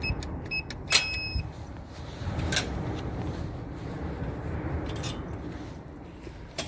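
A few short high electronic beeps, then a sharp click about a second in and two softer clicks later, over a low steady rumble.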